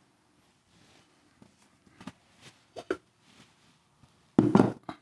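Light knocks and bumps of plaster slip-casting molds and soft clay pots being handled and set down on a wooden work table: a few single taps, then a louder short cluster of bumps near the end.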